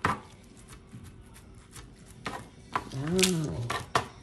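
A few light clicks and taps of a plastic paddle against a metal tray while soft filling is spread onto a tofu skin sheet. A short vocal sound comes about three seconds in.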